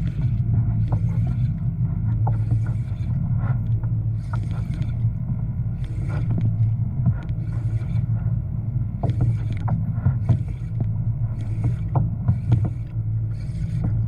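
A fishing reel being cranked steadily as a hooked fish is brought up, its turns making a soft swish a little faster than once a second, over a steady low hum.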